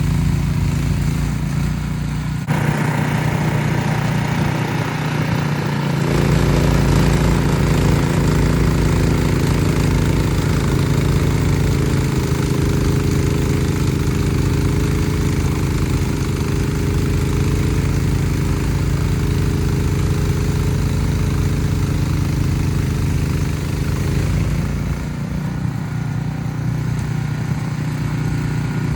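Ariens Platinum SHO 24-inch two-stage snow blower engine running steadily under load. A rushing hiss rises with it a couple of seconds in and drops away near the end.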